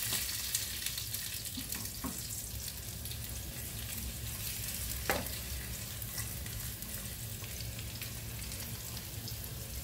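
Sliced garlic and potato fries sizzling as they fry in oil, with a steady hiss. A wooden spatula stirs the fries and knocks against the pan a few times.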